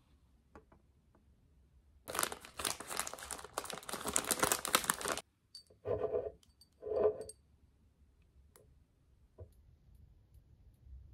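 Plastic wrapping crinkling and tearing for about three seconds, followed by two short, duller sounds about a second apart.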